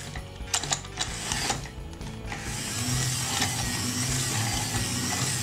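A plastic transforming police-car toy's moving parts click sharply a few times, then its gears whir and rattle steadily from about halfway in, over background music.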